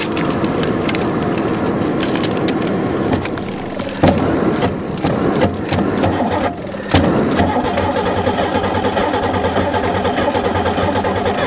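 Buick 3.8-litre V6 being cranked by its starter motor, turning over without catching. The cranking breaks off briefly twice, about three and a half and about six and a half seconds in, and then resumes.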